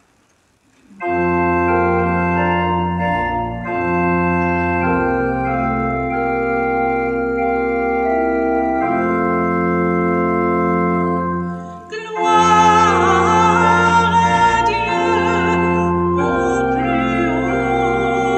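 Church organ playing held chords of the hymn of praise, starting about a second in and changing every couple of seconds; about twelve seconds in, a woman's voice begins singing with vibrato over the organ.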